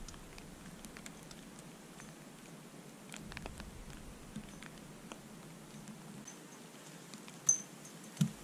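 Faint patter of scattered light ticks, with a sharp click about seven and a half seconds in and a low knock just after.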